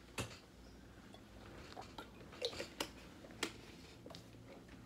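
Faint handling noises: a handful of scattered light clicks and taps as a person reaches for and handles something close by.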